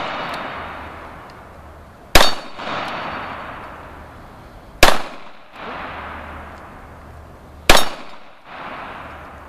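Three shots from a Sig Pro SP2009 9mm pistol, about two and a half seconds apart, each followed by steel targets ringing and slowly dying away.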